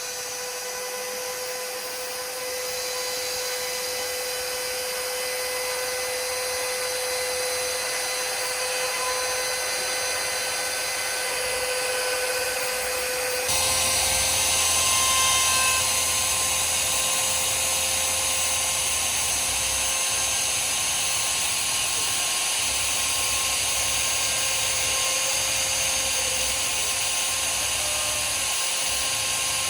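Spindle of a home-built MPCNC router running steadily with a high whine while the machine works. About halfway through, the sound changes abruptly and gets louder.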